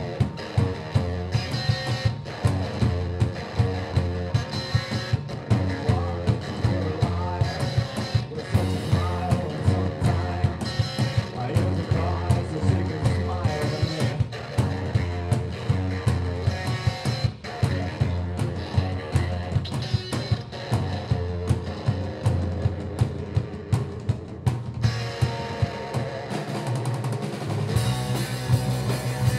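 Rock music played by a band on electric guitar, bass and a drum kit, with a steady driving beat. The song thins out briefly just before the end and then comes back heavier.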